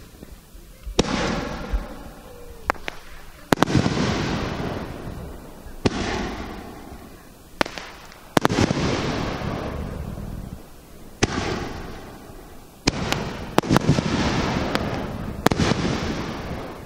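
Aerial fireworks bursting close overhead: a string of sharp bangs a second or a few seconds apart, each trailing off in a long crackling hiss as the stars burn out.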